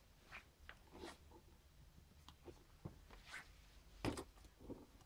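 Faint scuffling and scratchy clicks of Schipperke dogs' paws and claws on a wooden floor as a puppy tussles with its mother, with a louder bump about four seconds in.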